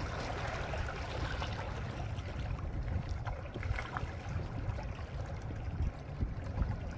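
Small waves lapping and splashing against volcanic shore rocks, over a steady low rumble.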